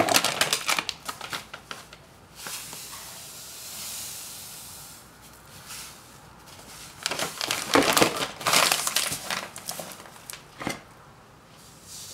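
Plastic bag of granulated sugar crinkling and crackling as it is handled, with a soft, even hiss of sugar pouring into a plastic measuring cup a few seconds in. The crinkling of the bag comes again, longer, in the second half.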